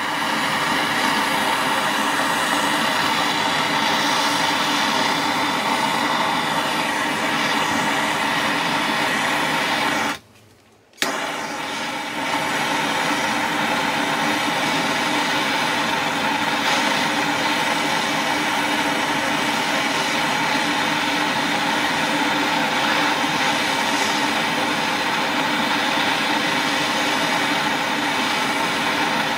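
Handheld gas torch flame running steadily as it heats a copper piece to melt tin onto it. The sound drops out suddenly for under a second about ten seconds in, then comes back at the same level.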